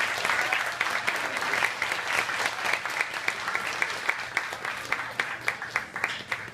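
Audience applauding, the clapping slowly thinning out toward the end.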